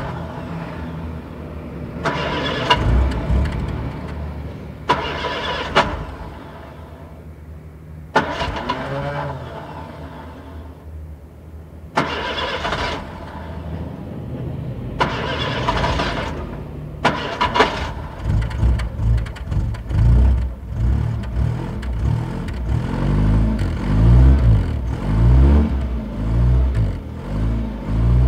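1967 Wolseley Sixteen-Sixty, heard from inside the cabin, being cranked on the starter in several short bursts that fail to catch. About two-thirds of the way in the engine fires and is revved up and down repeatedly.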